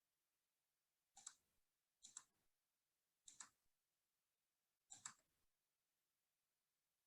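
Four faint clicks at a computer, each a quick pair, spaced about a second apart.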